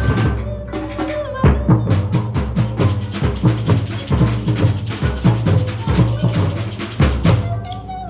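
Live samba band playing: deep surdo drums beat a steady pulse under busy, quicker percussion, with a voice singing over it.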